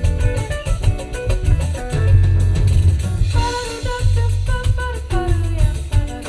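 A song with a heavy bass line, drum kit and plucked guitar playing through a custom car audio system, heard inside the cabin of a Toyota Hiace Premio van.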